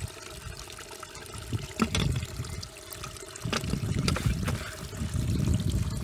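Water sloshing and trickling in uneven surges, louder from about three and a half seconds in, with a few sharp clicks.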